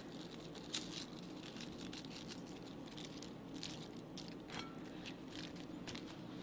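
Faint rustles and light soft taps of iceberg lettuce leaves being laid on a hamburger and the top bun set on, a little busier around the middle, over a low steady hum.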